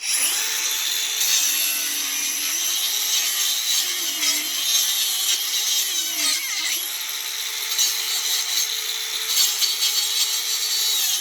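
DeWalt DCG405FN cordless angle grinder fitted with a Bosch wood-cutting disc, running and cutting through wood. Its high whine sags in pitch several times in the first seven seconds as the disc takes load, then runs steadier.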